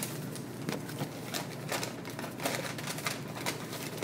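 Plastic shopping bag crinkling and rustling as it is handled, with many irregular crackles.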